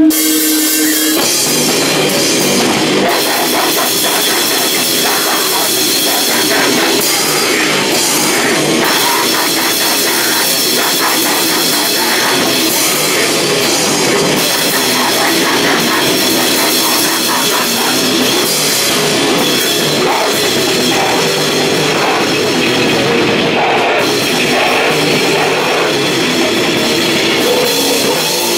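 Live grindcore band playing loud and dense: distorted guitar and fast drum kit. A held steady note gives way about a second in as the full band comes in.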